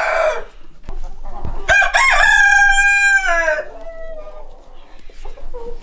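Domestic roosters crowing. One crow ends just as the sound begins, then a second loud crow starts about two seconds in, climbs, holds and falls away.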